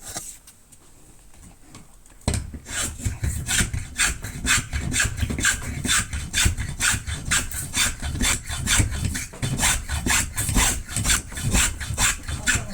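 A hand tool shaving a wooden sanshin tuning peg in quick back-and-forth strokes, about two a second, starting about two seconds in.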